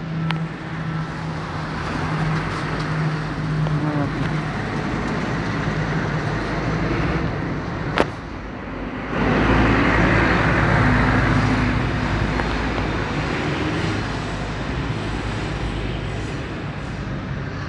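Military aircraft flying over, a steady rumble over city traffic noise that swells suddenly about nine seconds in and eases off again. There is a single sharp click just before the swell.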